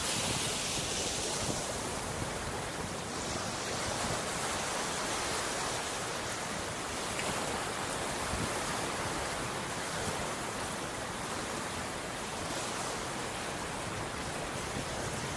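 Ocean surf washing ashore as a steady hiss, with a brighter wash of a wave in the first few seconds that then settles.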